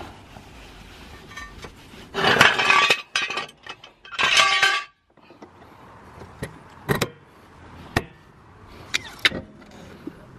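Steel axle stands and a hydraulic trolley jack being handled to lower the car: a few seconds of loud metal clatter, then, after a short gap, a handful of sharp metallic clinks about a second apart.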